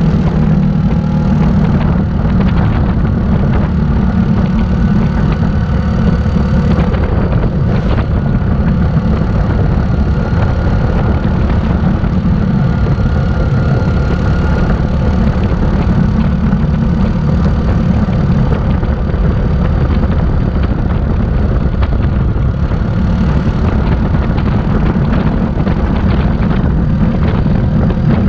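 Yamaha Grizzly 700 ATV's single-cylinder engine running steadily under way along a dirt trail.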